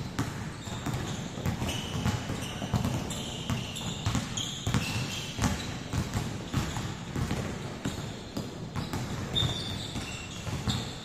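Several basketballs bouncing on a hardwood gym floor as players dribble, an irregular patter of thuds, with occasional short high squeaks.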